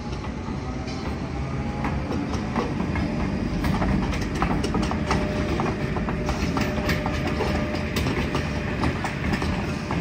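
MTR engineering train, a locomotive hauling a ballast tamping machine, rolling slowly past with a low rumble. Its wheels click sharply and irregularly over the rail joints and points, growing louder about two seconds in.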